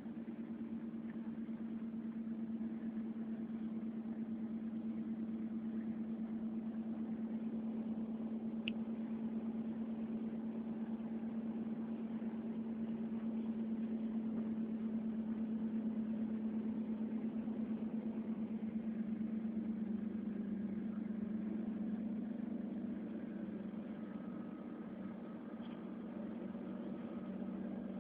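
Steady low mechanical hum of a train, idling or running, with an even pitch that drops slightly about two-thirds of the way through. A brief high chirp comes about nine seconds in.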